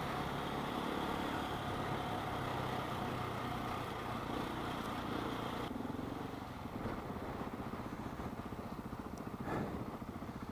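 KTM 690 single-cylinder motorcycle engine running steadily under way, with wind rushing over the microphone. About six seconds in the rush drops away sharply, leaving the engine's low, even beat.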